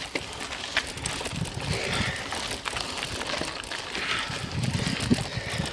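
Bicycle being ridden up a steep climb: a continuous ride noise with scattered sharp clicks and rattles from the bike, and wind on the microphone.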